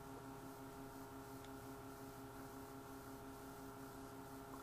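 Faint, steady electrical hum: quiet room tone with no distinct mechanical event.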